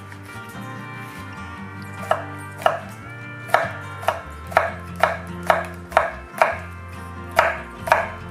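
Chef's knife slicing a red chili pepper on a bamboo cutting board: about a dozen crisp strikes of the blade on the board, roughly two a second, starting about two seconds in.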